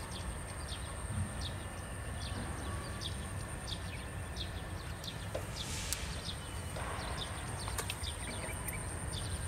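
Outdoor pond-side ambience: small birds chirping over and over in short, high, falling notes, over a thin steady high tone and a low rumble. There is a brief rustle a little past the middle.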